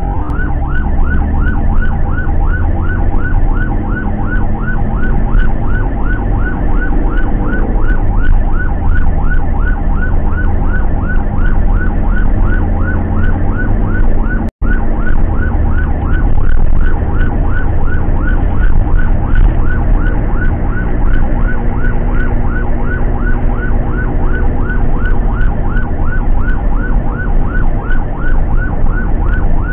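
Electronic ambulance siren on a fast yelp, short rising chirps repeating about three times a second, heard from inside the cab of the moving ambulance with engine and road rumble underneath. The sound drops out for an instant about halfway.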